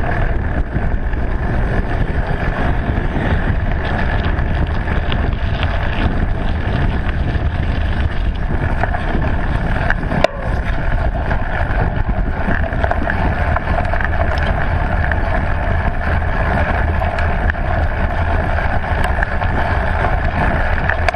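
Riding noise from a mountain bike filmed by a handlebar-mounted camera: steady wind buffeting on the microphone over the rolling rumble of knobby tyres, first on tarmac and then on grass and dirt trail. A single sharp knock about ten seconds in.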